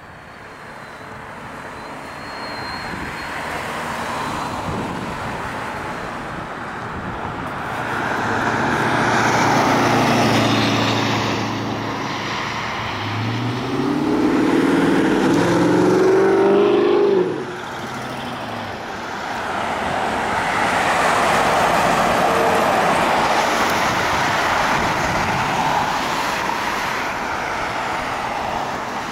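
Road traffic on a multi-lane road: tyre and engine noise from cars passing by, swelling and fading several times. From about halfway through, a louder vehicle engine climbs in pitch as it accelerates, then cuts off suddenly.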